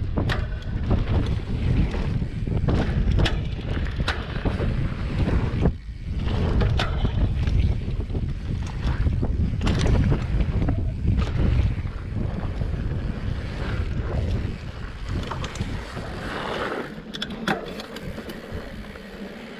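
Wind buffeting the microphone of a camera on a moving mountain bike, over the rumble of knobby tyres on a dirt trail, with frequent knocks and rattles from the bike taking bumps. The wind rumble eases in the last few seconds.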